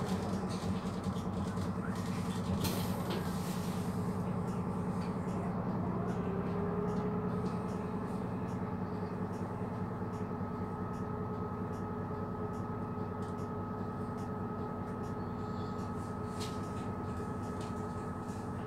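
Van Hool NewA309 city bus's MAN D0836 six-cylinder diesel engine and drivetrain running, heard from inside the passenger cabin as a steady low hum with a thin high whine that sets in partway through, plus a few faint rattles.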